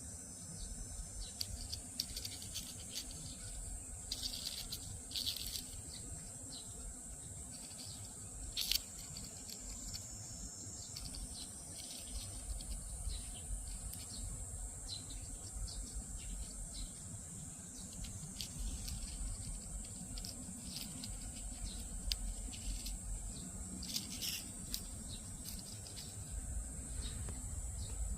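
Cicadas singing: a steady, high-pitched continuous buzz, with scattered small clicks and ticks over it and one sharper click about nine seconds in.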